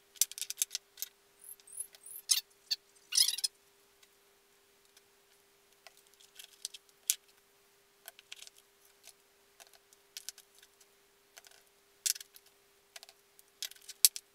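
Small wooden offcuts clacking and knocking against each other and the bench as they are glued and pressed together edge to edge, in short irregular knocks with a few brief scrapes, over a faint steady hum.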